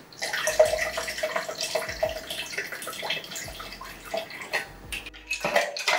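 Liquid poured from a small glass bottle into a stainless-steel cocktail shaker, a steady trickling pour that stops about five seconds in. A few light knocks follow near the end.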